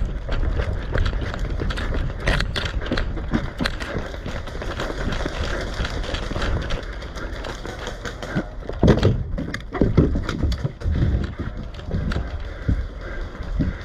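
Footsteps and rattling gear of an airsoft player on the move: a steady run of short knocks and clicks, with a few louder knocks about nine and ten seconds in.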